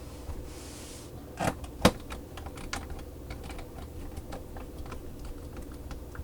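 Screwdriver driving screws into a laptop's plastic case: two sharper knocks about a second and a half in, then a run of small irregular clicks and taps.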